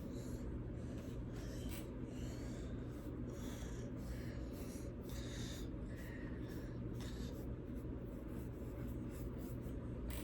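Paintbrushes scratching lightly over pumpkin skins in short, irregular strokes, over a steady low hum.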